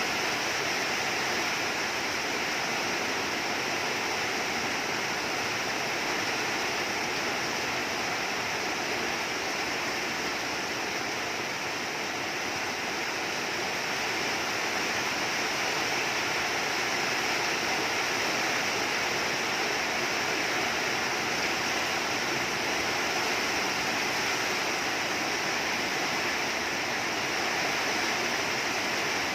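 Rain falling steadily, an even hiss with no breaks or sudden sounds.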